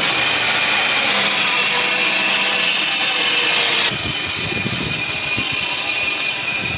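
Chevrolet Impala engine running with a loud, steady whirring noise from the accessory belt drive, with a few faint whining tones in it: one of the pulleys is failing. The noise gets somewhat quieter about four seconds in.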